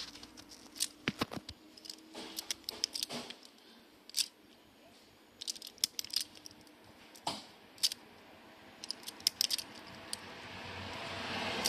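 Self-adjusting wire stripper clicking and snapping as it strips insulation off thin harness wires, in scattered clusters of sharp clicks with wire rustling between them. A rushing noise builds up near the end.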